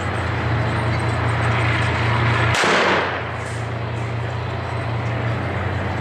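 A single loud bang of weapon fire about two and a half seconds in, with a short echo after it, over a steady low rumble.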